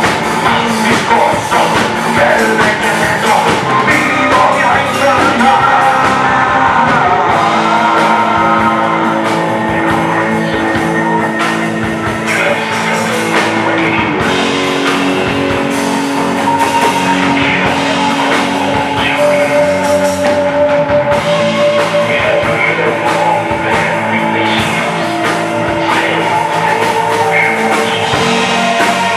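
Live punk rock band playing: electric guitar, bass guitar and drum kit, with a singer's vocals over them.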